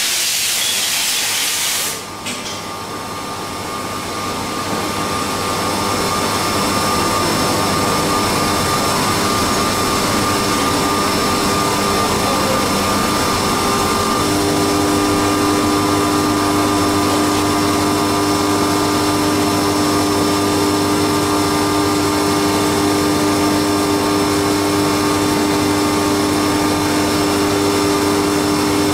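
Haas CNC milling machine running, with steady whining machine tones. A loud hiss cuts off suddenly about two seconds in, and a new steady, lower tone joins about halfway through.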